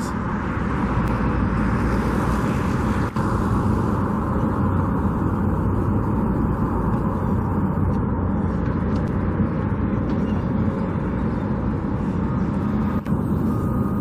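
Steady running noise of a car, a low engine hum under the hiss of tyres on the road.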